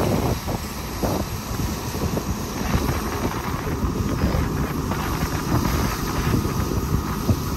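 Komatsu hydraulic excavator's diesel engine running steadily while it digs, with a few irregular knocks and wind noise on the microphone.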